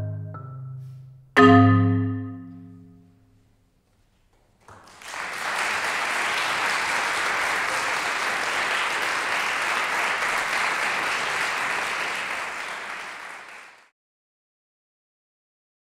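Marimba struck by several players at once, the last notes dying away, then one final loud chord about a second and a half in that rings out and fades. After a brief silence, audience applause starts and keeps up steadily until it cuts off suddenly near the end.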